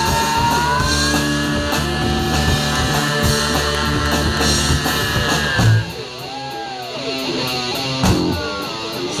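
Rock band playing: a long held lead guitar note that bends upward, over rhythm guitar, bass and drums. A little before six seconds the full band drops away, leaving sliding, bending guitar notes and a few drum hits.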